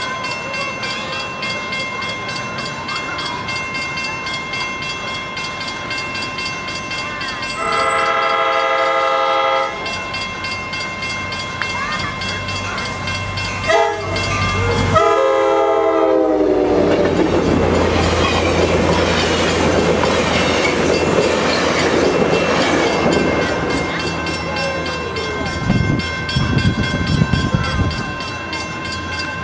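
Grade-crossing bell ringing steadily while a Coaster push-pull commuter train, led by an F40PH diesel locomotive, approaches and sounds its horn. There is a long blast about 8 seconds in, then a short one and another long one whose pitch drops as the locomotive passes. The train then rushes by through the crossing, ending with a run of wheel clanks over the crossing.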